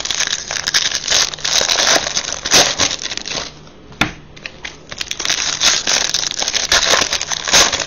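Trading-card pack wrappers crinkling and baseball cards being handled, in two busy stretches with a lull between and a single sharp click about four seconds in.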